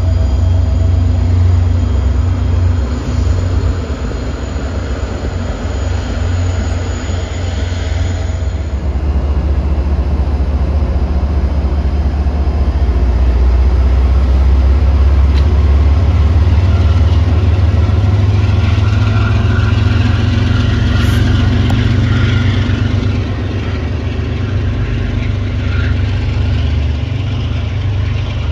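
MBTA commuter-rail diesel locomotive engine running, a loud, steady, deep rumble that swells in the middle and eases a little near the end.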